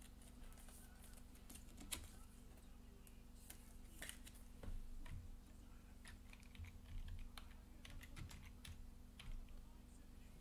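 Faint scattered clicks and soft plastic rustles from a trading card being handled in a clear plastic sleeve and rigid plastic toploader.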